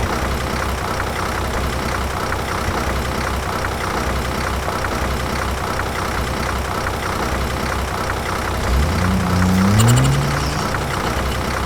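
Motor of a homemade miniature tractor running steadily, rising in pitch as it revs up briefly about nine seconds in.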